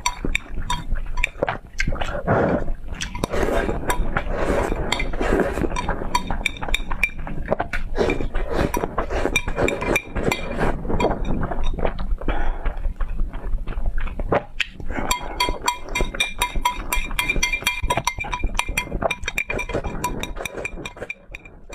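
Noodles being slurped noisily, with chopsticks clicking and scraping against a ceramic plate.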